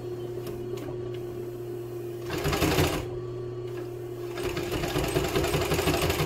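Walking-foot leather sewing machine stitching through two layers of leather in two short runs at slow speed, the first brief and the second about two seconds long, over a steady hum.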